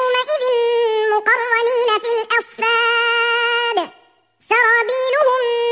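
A solo voice chanting a melody in long, steady held notes with slight wavers. There is a brief pause about four seconds in.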